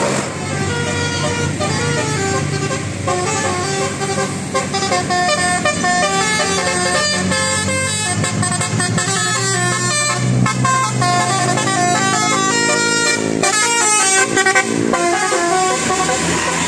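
Bus telolet horn, a set of musical multi-tone horns, playing a quick melody of short stepped notes over the bus engine's steady running. A short burst of hiss comes about three-quarters of the way through.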